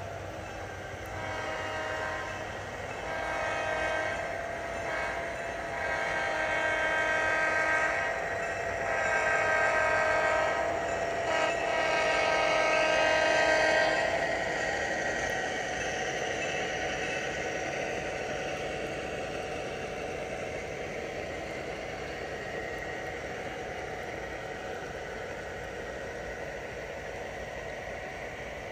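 Horn of a sound-equipped HO-scale model diesel locomotive blowing a chord in a series of about five blasts, some long. After the last blast, a steady rumble and hiss of the locomotive running carries on.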